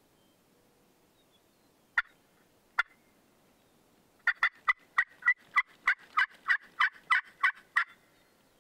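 Hen turkey call being worked to draw in a gobbler: two short, sharp clucks, then a run of about fourteen loud yelps at roughly four a second, each note breaking from a higher to a lower pitch.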